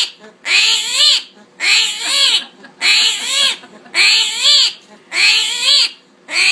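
An animal calling over and over, about once a second, each loud call rising and then falling in pitch.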